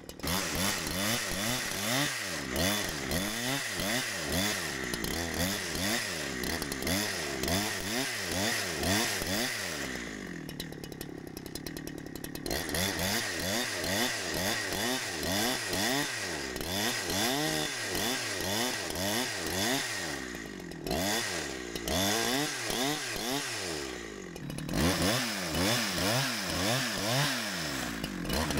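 Two-stroke gas chainsaw ripping lengthwise through a spruce log, its engine pitch rising and falling over and over as the cut loads and frees it. About ten seconds in it drops to a lower, steadier note for a couple of seconds, then goes back to cutting at full speed.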